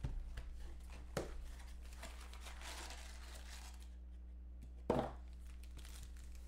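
Hands opening a trading-card box and handling a stack of foil card packs: crinkling and tearing of wrapping with a few sharp clicks, a rustle about two to three seconds in, and a single thump, the loudest sound, about five seconds in. A steady low electrical hum runs underneath.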